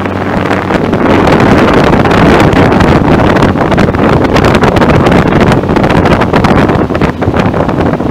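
Loud wind rushing and buffeting on the microphone, over a Suzuki 15 hp outboard running at speed.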